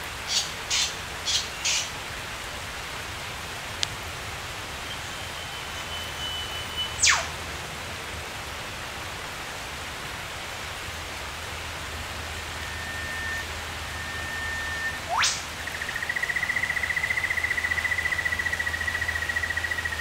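Rainforest birds calling over a steady hiss of rain. There is a quick run of four chirps at the start, and long whistled notes that each end in a very fast sweeping whistle. A long warbling trilled note begins near the end.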